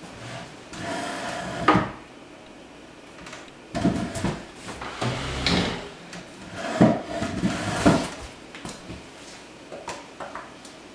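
Knocks, rubbing and clatter of wooden furniture and household objects being handled and moved around a kitchen table, in two bouts with a sharp knock at the end of the first.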